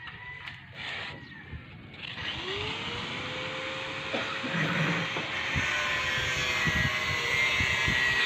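A motor engine runs, growing steadily louder from about two seconds in, with a whine that climbs and then holds steady. A few short crackles come in the first two seconds.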